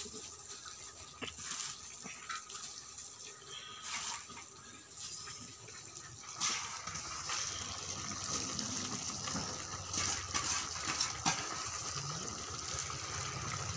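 Low hissing and bubbling from chicken curry cooking in a kadai over a wood fire as handfuls of fresh spinach are dropped in, with a few soft knocks and rustles.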